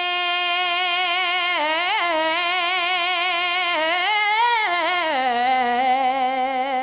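A solo singing voice without accompaniment holds long notes with a slight waver, sliding up and back in ornamental turns, and settles on a lower held note near the end.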